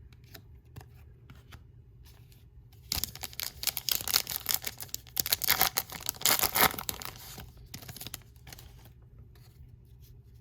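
A trading-card pack wrapper being torn open and crinkled for about five seconds, with light clicks of cards being handled before and after.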